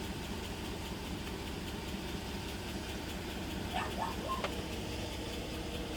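2008 Chevrolet Suburban's V8 idling with a steady low rumble. It is misfiring on cylinder 4 (code P0304), which leaves the truck shaking and down on power.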